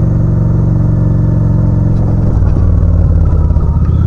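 2005 Honda Shadow's V-twin engine running at low speed. Its steady note turns rougher and more uneven a little over two seconds in.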